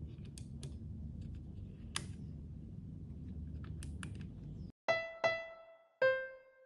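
A few faint clicks of buttons being pressed on a small plastic control box over low room hum. Then, after a sudden cut, three piano notes from the iPhone's GarageBand piano keyboard: two at the same pitch, then a lower one, each struck and dying away.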